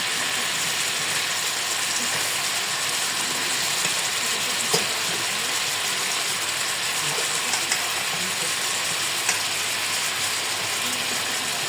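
Chicken pieces sizzling steadily in hot butter and oil in a pot as they brown, with a few short sharp clicks.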